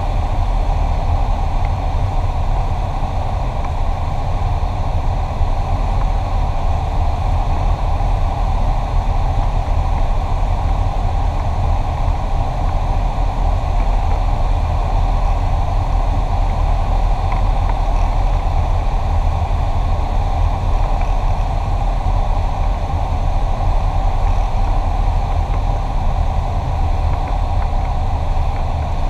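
Cessna 172SP's four-cylinder Lycoming engine and propeller running steadily, a loud even drone heard inside the cabin on final approach.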